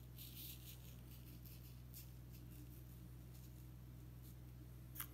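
Faint, brief rustles of dry coloured sand being sprinkled and spread with a metal spoon on a sticky sand-painting sheet, with one sharp tap about five seconds in, over a steady low hum.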